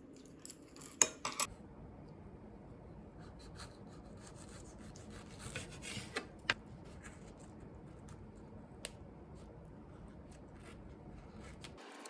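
Cutlery clinking against dishes a few times, the loudest clink about a second in, then faint scraping and occasional light taps on the tableware.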